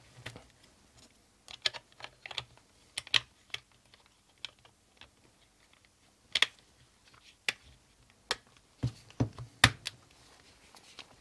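Plastic clicks and knocks from AA batteries being pushed into the handle of an HTi HT-02D handheld thermal camera and its plastic battery cover being slid on and snapped shut. Scattered sharp clicks, the loudest about six seconds in and just before the ten-second mark.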